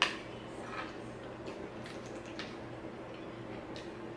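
Eating and drinking sounds at a table: a few small clicks and taps, the loudest right at the start, over a steady low hum.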